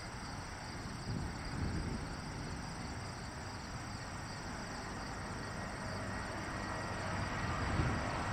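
Distant jet roar of a Boeing 747-400's four Rolls-Royce RB211 engines at takeoff power: a steady low rumble with a broad rushing hiss, slowly growing louder toward the end as the jumbo jet climbs out.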